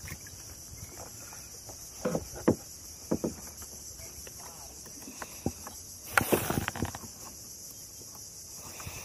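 Steady high-pitched insect chorus, with scattered knocks and clicks as the anchor line's clip and buoy are handled against a plastic kayak's hull, and a louder rustling scrape about six seconds in.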